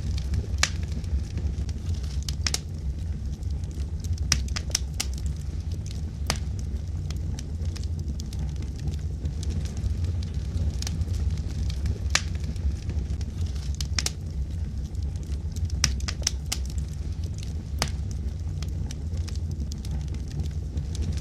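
Wood logs burning in a fireplace: a steady low rumble of the flames with irregular sharp crackles and pops from the burning wood.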